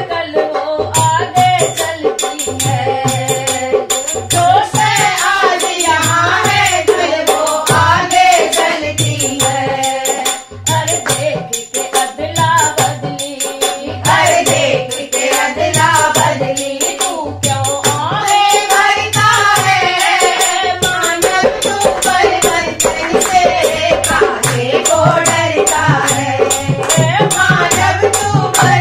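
A group of voices singing a Hindi devotional bhajan together, accompanied by a dholak drum keeping a steady beat and hand clapping.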